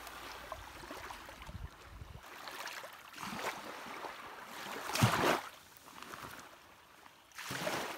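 Shallow water sloshing and splashing around hands and a sea trout being released back into the sea, in several short surges, the loudest about five seconds in.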